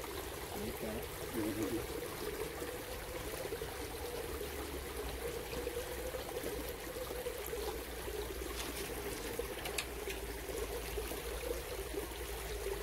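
Shallow creek water trickling over stones: a steady running wash.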